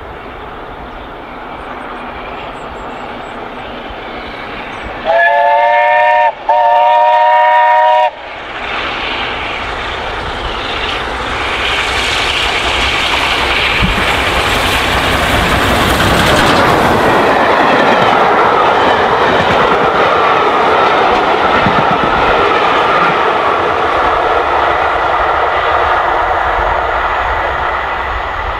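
Steam locomotive 71000 Duke of Gloucester, a BR Standard Class 8P 4-6-2, sounding two loud whistle blasts about five seconds in. The locomotive and its train then run past at speed, the noise building to a peak about halfway through and easing off near the end.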